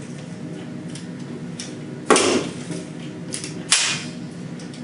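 Harris Series S bipod's spring-loaded legs being swung down and snapping into position: two sharp metallic clacks about a second and a half apart, with a lighter click just before the second.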